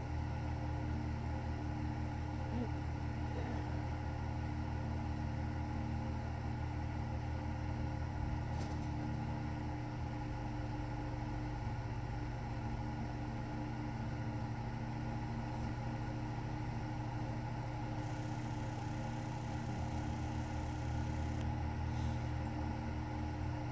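Steady low machine hum with several constant tones, unchanging throughout.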